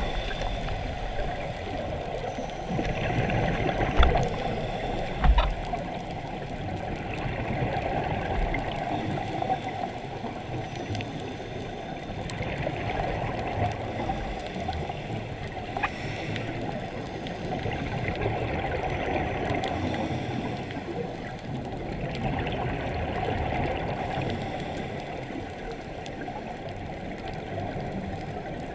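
Underwater ambience of a scuba dive: the diver's regulator breathing, with exhaled bubbles gurgling up in louder bursts every few seconds over a steady watery hiss. A few sharp knocks, two of them about four and five seconds in.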